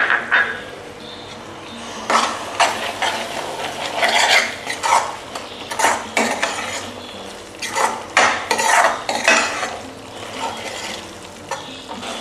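A spoon stirring simmering gravy in a cooking pan, in a run of irregular scrapes and knocks against the pan.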